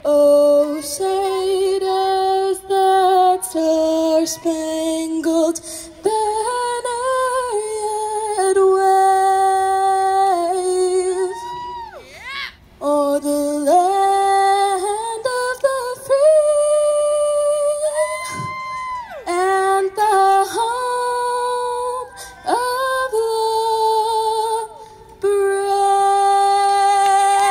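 A woman singing a slow melody into a microphone through a PA, in long held notes with short breaks between phrases.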